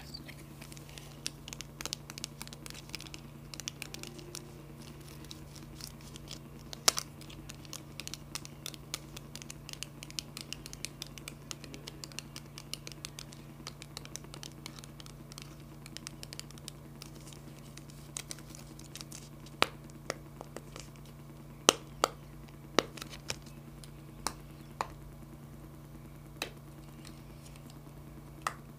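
Fingers with long nails handling a small clear plastic packet close to the microphone for ASMR: continuous fine crinkling and scratching, with a scattering of sharper clicks that become louder and more spaced out in the second half.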